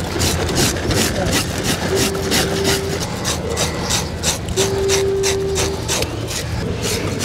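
A hand-held fish scaler scraping the scales off a lingcod on a wooden cutting board: quick rasping strokes, several a second. A steady tone sounds twice in the background.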